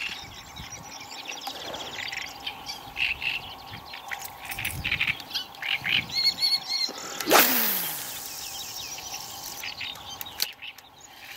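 Small birds chirping over a steady background of calling frogs. About seven seconds in comes one loud rushing noise, the loudest thing here, and its pitch falls away over nearly a second.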